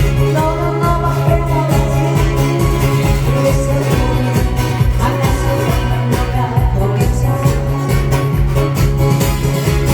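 Loud upbeat music with a steady beat, with singing over it.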